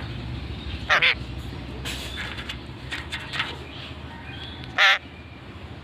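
A parrot giving two loud, short squawks, one about a second in and one near the end, with softer short calls between them.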